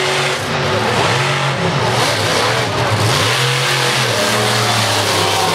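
A BigFoot monster truck's engine revving hard. Its pitch climbs and drops several times as the throttle is worked, with a steadier stretch past the middle.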